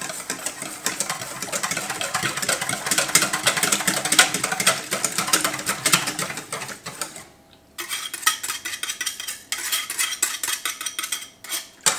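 Wire balloon whisk rattling quickly against the sides of a stainless steel mixing bowl as egg yolks are whisked into custard filling. The strokes stop briefly about seven seconds in, then start again.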